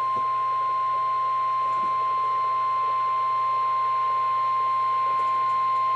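NOAA Weather Radio 1050 Hz warning alarm tone, one steady high-pitched tone, sounding through a Midland HH54 VP2 weather radio's speaker; it is the alert signal of the Required Weekly Test, which announces the broadcast test message.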